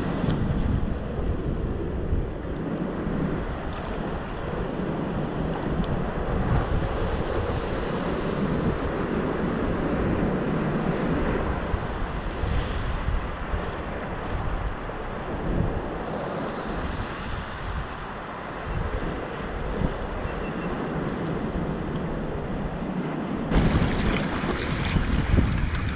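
Wind buffeting the microphone of a sea kayak's deck camera over the wash and slosh of ocean swell around the hull. Near the end it changes to a brighter, hissier rush of water.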